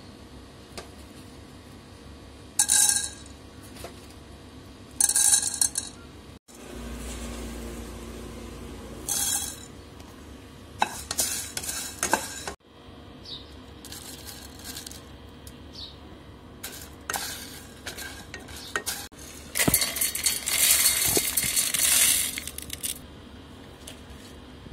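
Dry whole spices (bay leaves, dried red chillies, coriander seeds and peppercorns) dropped into a pot and moved about, rattling and clinking in several short bursts, with a longer rattle about twenty seconds in.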